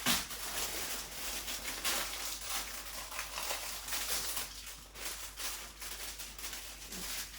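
Paper leaflets and instruction booklet being handled and leafed through, giving an irregular rustling and crinkling.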